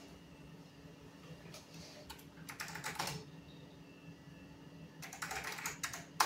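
Typing on a computer keyboard in two short runs of rapid keystrokes, the first starting about one and a half seconds in and the second about five seconds in, ending in one sharper, louder key strike. A steady low hum runs underneath.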